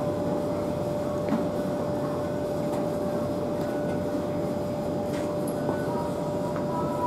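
E721-series electric train standing at the platform, its on-board equipment giving a steady hum with one held whine over it, and a few faint clicks.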